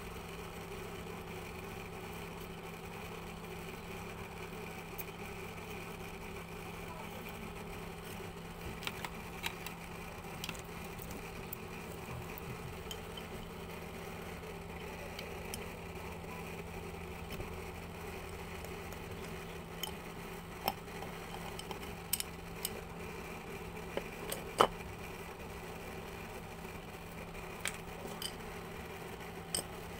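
Steady low hum with scattered small clicks and taps, one sharper click about 25 seconds in.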